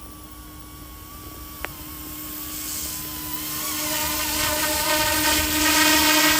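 Small electric RC helicopter (Eachine E200 Pro) in flight: a high motor-and-rotor whine that wavers slightly in pitch and grows steadily louder as it comes nearer. Wind rumbles on the microphone, and there is a single sharp click about a second and a half in.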